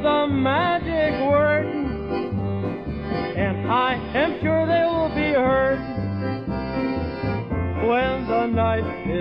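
Polka record playing: a band melody full of sliding, scooping notes over a steady oom-pah bass of about two beats a second.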